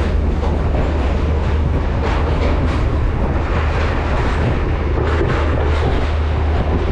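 Passenger train running along the track, heard from an open carriage doorway: a steady low rumble with the rattle of the wheels on the rails.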